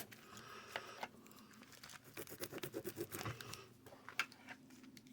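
Ballpoint pen scribbling on paper: faint scratching strokes, with a quick back-and-forth run of strokes in the middle and small clicks of handling.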